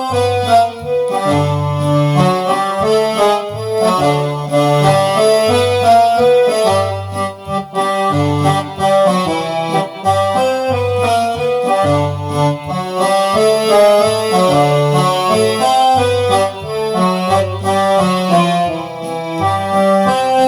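Roland FR-8x digital V-Accordion playing a tune in an instrumental passage: a melody with chords over a bass line that alternates between two notes.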